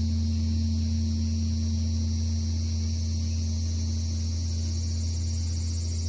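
Great bronze Korean temple bell (beomjong) humming on after a strike from its wooden log striker: a low steady drone with a higher tone above it, slowly dying away.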